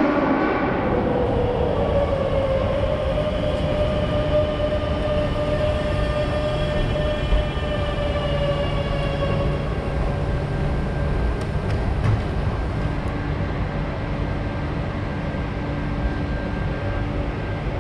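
Madrid Metro Line 10 train running: a constant rumble of wheels on rail with an electric whine in several tones that falls slowly in pitch over the first half, then holds steady.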